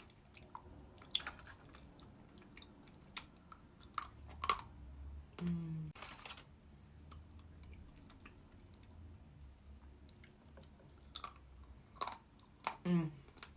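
Close-miked chewing of chocolate Easter egg, with scattered sharp snaps and crunches as the chocolate shell breaks.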